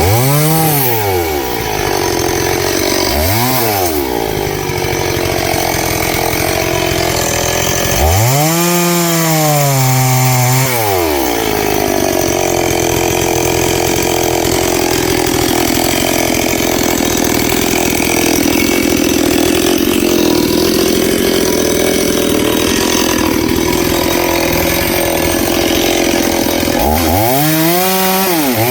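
Noker 381 two-stroke chainsaw revving up and dropping back a few times, then running steadily under load through a long cut in a log, with quick throttle blips near the end.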